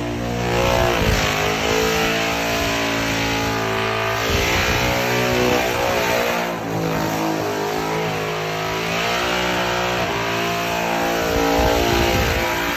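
Supercharged engine of the War Bird burnout car held at high revs with the rear tyres spinning; the revs sag and climb again several times over a hiss of tyre noise.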